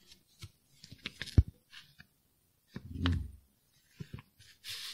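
Paper rustling and small clicks as a printed booklet is handled and its pages moved, with one sharp knock about a second and a half in.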